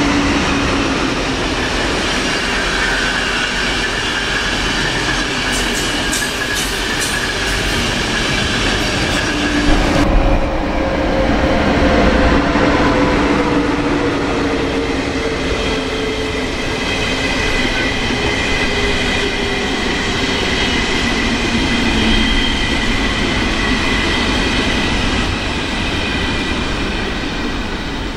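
ÖBB passenger trains rolling past on the rails in a steady rumble: first a rake of Intercity coaches, then, from about ten seconds in, a red Railjet set. Thin squealing tones run over the rumble, one sliding slowly down in pitch, with a short cluster of clicks around six to seven seconds in.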